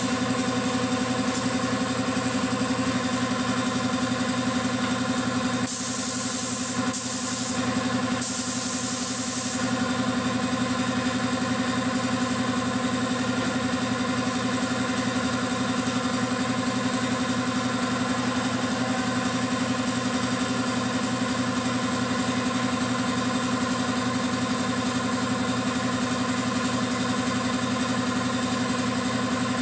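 Piston air compressor running with a steady hum. About six seconds in, a gravity-feed paint spray gun hisses in three short blasts, the last about a second and a half long.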